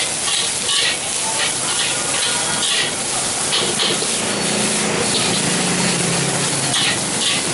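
Rice sizzling and hissing in a hot carbon-steel wok over a gas burner, while a metal spatula scrapes and tosses it against the wok again and again. A low steady hum joins in for a few seconds around the middle.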